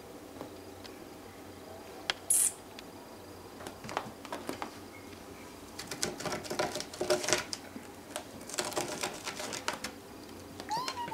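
Fingers scratching and rustling on the sisal-rope post of a cat tree, a quick run of dry clicks and scratches that comes in two spells. A short, loud hiss-like burst comes about two seconds in, and a kitten gives a short mew right at the end.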